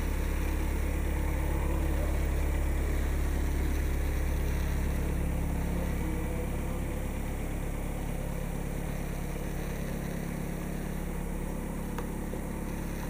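Volkswagen Passat 2.0 TDI four-cylinder diesel idling: a steady low hum that grows slightly quieter toward the end.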